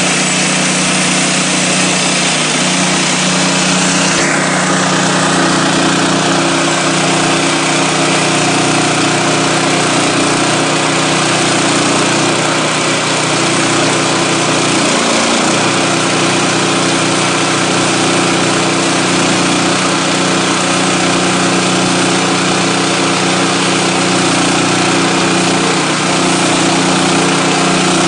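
Portable band sawmill's gasoline engine running steadily at a constant speed. About four seconds in, a high whine drops in pitch and then holds steady.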